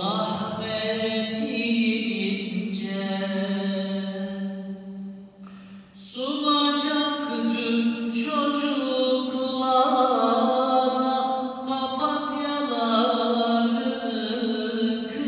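A man's unaccompanied voice singing a kaside, a Turkish Islamic devotional ode, in long, wavering held notes, inside a large stone mosque. About five seconds in he pauses for breath, then comes back louder and higher.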